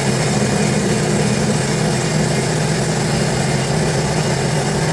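Sea-Doo GTR 230's Rotax 1503 three-cylinder four-stroke engine idling steadily out of the water, run for a few seconds after an oil change to circulate the fresh oil before the level is rechecked.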